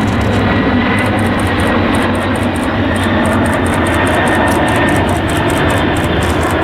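Jet engines of the Boeing 747 Shuttle Carrier Aircraft carrying Space Shuttle Endeavour passing overhead, a loud, steady roar. From about a second in, a fast series of high ticks runs alongside it.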